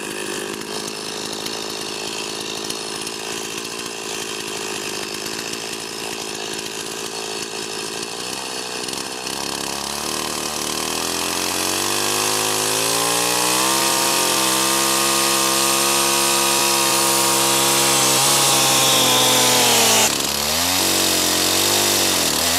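Stihl chainsaw running, then revving up from about nine seconds in and held at high speed as it cuts into a Douglas fir trunk. Near the end the engine note changes suddenly, then dips and picks up again.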